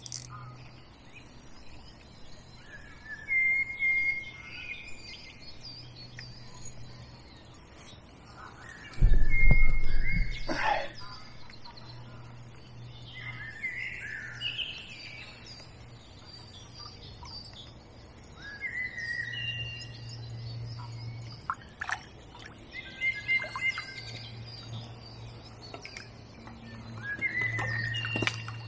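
Wild birds singing and chirping all through, a spring dawn chorus, with short whistled phrases and chirps coming one after another. About nine seconds in there is a single loud, low thump, and a few sharp clicks come later.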